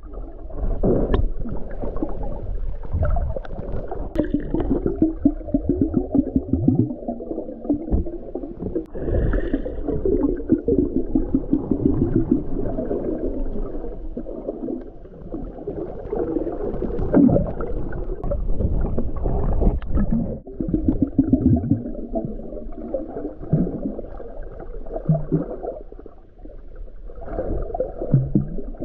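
Muffled underwater sound picked up by a submerged camera: water rushing and gurgling around it as a snorkeler swims and dives.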